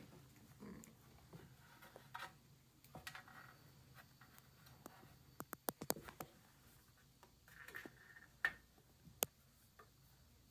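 Kittens scrambling on a blanket-lined metal scale tray: faint scratching and claw clicks on the metal, with a quick run of sharp ticks about halfway through and two single ticks near the end.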